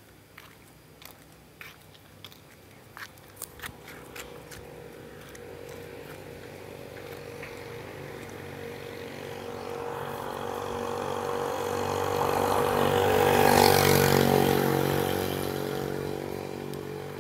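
A motor vehicle drives past on the road: its engine sound grows steadily louder for several seconds, is loudest about two-thirds of the way through, then fades as it moves away. A few faint clicks come before it, in the first few seconds.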